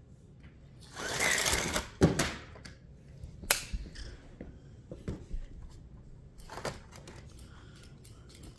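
Small electric toy slot cars running on a plastic track: a loud whir as a car speeds past about a second in, then a sharp clack. After that come scattered plastic clicks and knocks from the cars and track pieces.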